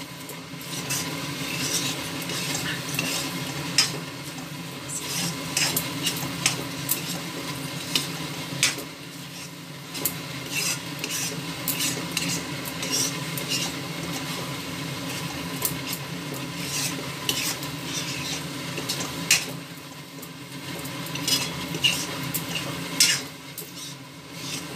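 A spatula stirring a thick paneer butter masala gravy in a metal kadai, with frequent irregular clicks and scrapes of the spatula against the pan. The gravy sizzles softly on the gas flame.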